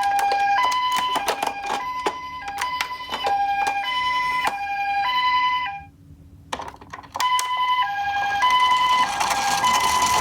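Toy ambulance's electronic two-tone hi-lo siren ("pee-po"), each tone held about half a second, with many sharp clicks and clatters over it. The siren stops about six seconds in and starts again a second and a half later, with a rattling rolling noise growing near the end.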